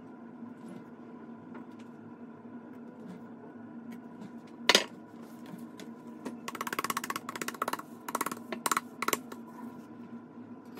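A metal offset spatula clanks once, loudly, into a stainless steel mixing bowl, then the ganache-filled tart is tapped and rattled rapidly against the countertop for a few seconds, a common step to level the ganache and knock out air bubbles. A steady low hum runs underneath.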